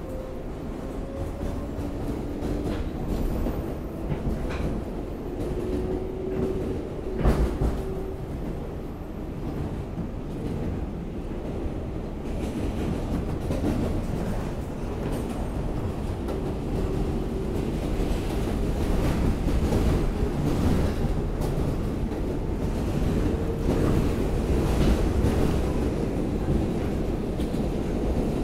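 R188 subway train running along the track, heard from inside the car: a steady wheel-and-rail rumble with clickety-clack, a motor whine that slowly rises in pitch over the first several seconds, and one sharp clack about seven seconds in.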